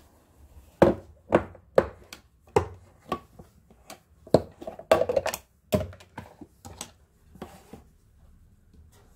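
An irregular series of sharp knocks and clicks of kitchenware being handled on a counter, as a clip-lock plastic lid is opened off a glass bowl of ghee; the knocks come thickest around the middle and stop before the end.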